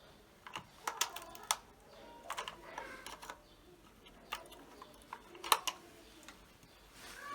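Irregular light clicks and knocks of hard plastic being handled: a faulty multi plug and its plug being moved and taken out.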